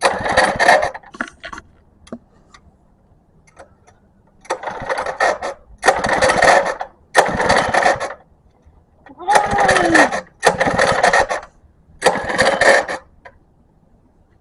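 Small gas engine hunting: it surges in about seven uneven bursts, each under a second, dropping back between them to a faint low running sound, the sign of an engine that runs but won't hold an idle.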